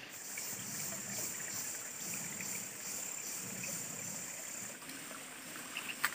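Jungle stream ambience: a shallow rocky stream flowing steadily, with an insect buzzing high and pulsing overhead until about five seconds in. A single sharp click comes near the end.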